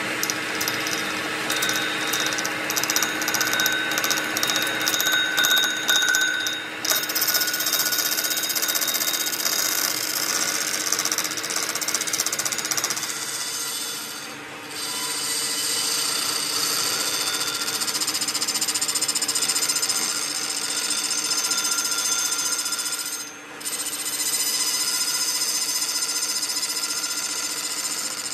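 Metal lathe turning the rim of a large steel gear blank, the cutting tool scraping hard metal and throwing sparks: a continuous harsh cutting noise with a steady high-pitched whine in it. The noise drops briefly three times.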